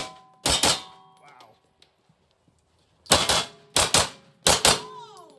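A 9 mm TTI Pit Viper pistol fired in quick pairs, about eight shots in all: one pair about half a second in and three more pairs between about three and five seconds in. Brief ringing tones hang on after some of the shots.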